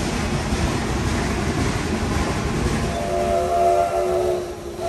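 Steam train running with a steady rumble, then about three seconds in the locomotive's steam whistle blows, a chord of several tones held, breaking off briefly near the end and starting again.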